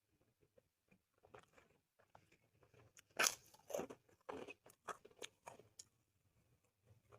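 A person biting into and chewing crunchy food close to the microphone. There is one loud crunch about three seconds in, followed by a run of crunchy chews about two a second that die down near the end.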